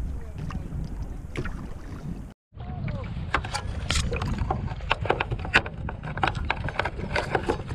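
Choppy water slapping and splashing against a kayak's hull in quick irregular clicks, over a steady low rumble of wind on the microphone. The sound drops out completely for a moment about two and a half seconds in.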